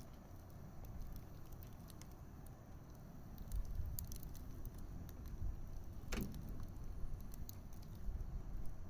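Wood fire crackling: scattered small sharp pops over a low steady rumble, with one louder snap about six seconds in.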